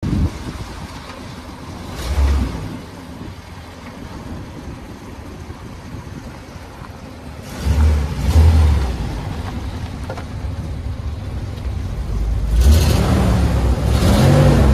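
Vehicle engine running with a steady low rumble and a few loud surges, then revved in repeated short blips, rising and falling about once a second, near the end.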